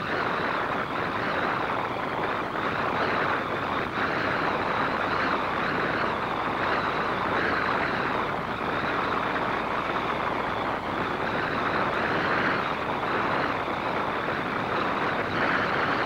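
Hurricane-force wind roaring without a break, rising and falling in uneven gusts.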